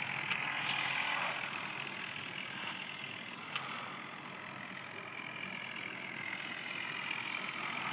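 A vehicle engine running steadily, with a single short click about three and a half seconds in.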